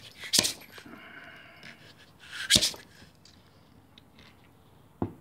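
Orange plastic scraper scraping and knocking against an Alfawise U20 print bed while prying at a stuck print, which will not come off. Two short, sharp scrapes about two seconds apart, with small clicks between and another short one near the end.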